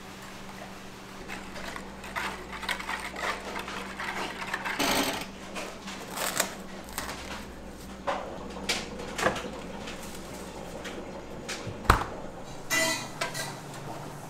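Food-preparation handling sounds: irregular taps, clicks and short scrapes of utensils and containers, with one sharper knock near the end, over a steady low hum.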